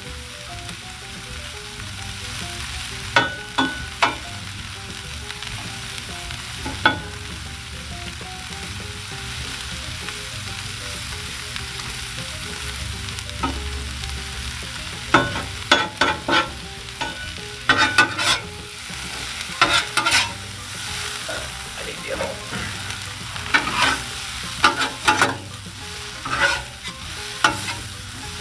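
Sliced onions and mushrooms sizzling steadily on a Blackstone 22-inch flat-top griddle. About halfway through, two metal spatulas start scraping and clacking against the griddle top as the vegetables are tossed.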